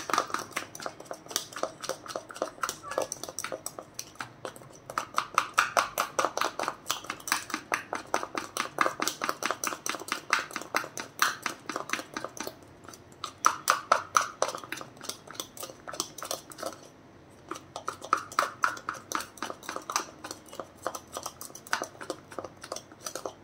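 A spoon beating a thick paste of instant coffee, sugar and water in a ceramic cup, clicking rapidly against the cup several times a second as the mixture is whipped into a stiff foam. The clicking dips briefly now and then and stops just before the end.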